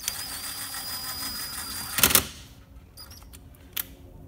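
Cordless impact driver running a mower blade bolt in, with a steady motor whine for about two seconds. It ends in a short, loud burst of impacts as the bolt snugs up to its initial torque, followed by a few light clicks.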